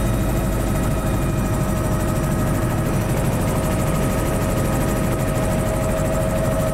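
Bell 206 JetRanger helicopter in flight, heard from inside the cabin: a steady, loud mix of turbine and rotor noise with a steady high tone over a heavy low hum.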